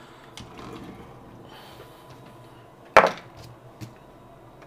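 Small hard objects handled on a workbench: a few light clicks and one sharp knock about three seconds in.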